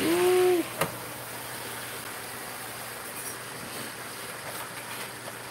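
Large pot of seafood-boil water at a rolling boil, giving a steady hiss. At the very start there is a short hummed voice sound, and a single click just before a second in.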